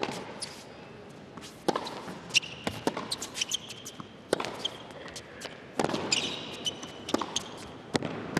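Tennis rally on an indoor hard court: the ball struck by rackets about every second and a half, with ball bounces between the hits and short high squeaks of shoes on the court.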